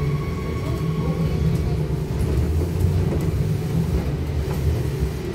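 Cabin noise inside a Trolza-5265 Megapolis trolleybus on the move: a steady low rumble of tyres and body, with a faint steady hum from the electric traction equipment and a few light rattles.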